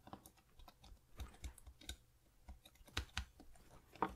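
Faint, irregular small plastic clicks and taps as fingers handle a smartwatch's display module and press it into its plastic case, with a few sharper clicks about three seconds in and again near the end.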